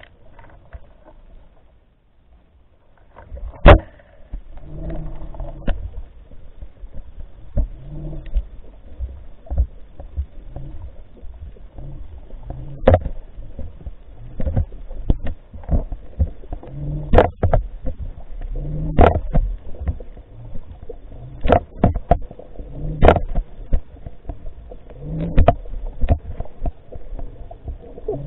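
Underwater recording: irregular sharp knocks and clicks, about one a second, over a constant low rumble. Quiet for the first few seconds.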